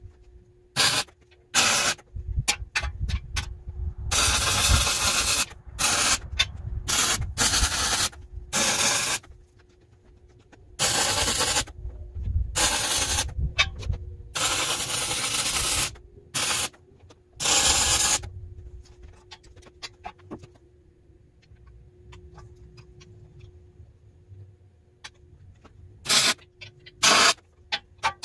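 Electric arc welding on a thick steel beam: a crackling, frying hiss that starts and stops sharply, in a run of short tacks and longer beads of one to two seconds, with a pause of several seconds before two more short welds near the end. A faint steady hum lies underneath.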